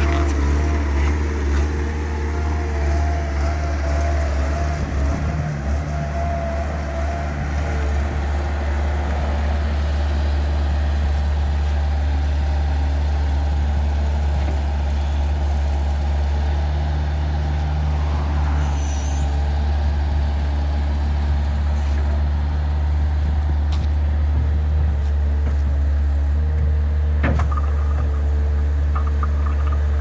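Bobcat 753 skid steer loader's diesel engine running steadily while the machine works its loader arms and sweeper bucket and drives, with a sharp click about three seconds before the end.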